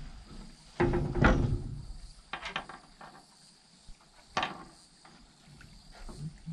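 Knocks and thumps against the boat's deck as fishing gear is handled: a heavy knock about a second in, then a few short sharp clicks.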